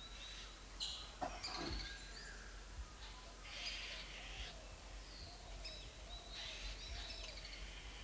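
Forest birds calling in short bursts of chirps and whistles every second or two, among them a maroon oriole.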